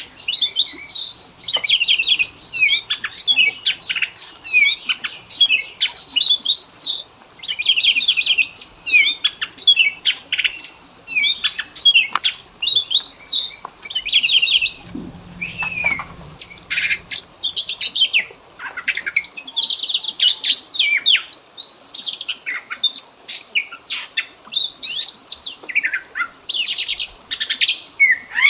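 Oriental magpie-robin (kacer) singing a fast, unbroken run of varied whistles, chirps and trills, full of 'isian': phrases copied from other birds.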